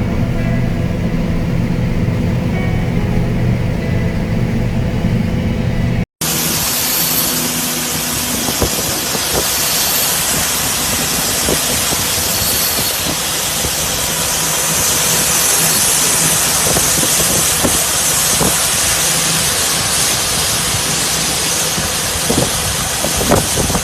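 A large diesel farm machine's engine runs steadily. After a sudden cut about six seconds in, a loud, even, hissy machine noise with scattered clicks takes over.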